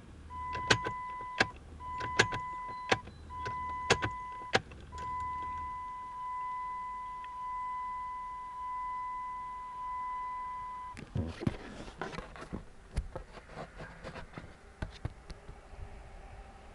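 Ignition key clicked on and off repeatedly in a 1996 Jeep Grand Cherokee, with the dash warning chime sounding a steady tone each time the key is on. This is the key-cycling used to make the check engine light flash out the stored trouble codes. On the last turn the chime holds for about six seconds, then stops with a click and is followed by handling noise and a few clicks.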